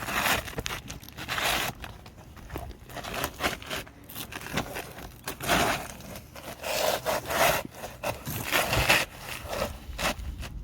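Repeated scraping and rubbing as a shingle is worked and slid into place among the surrounding roof shingles to test its fit, in irregular short strokes.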